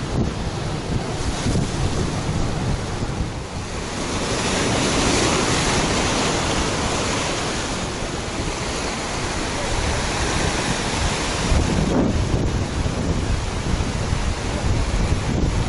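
Ocean surf breaking and washing over the boulders of a rock jetty, swelling louder a few seconds in and again near the end, with wind buffeting the microphone as a low rumble.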